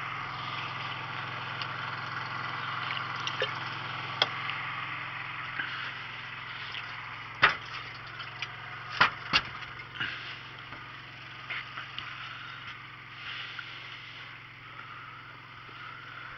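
Steady motor hum from the boat, with several sharp knocks and clatters of gear being handled on the deck, the loudest about seven and a half seconds in and a quick pair about nine seconds in.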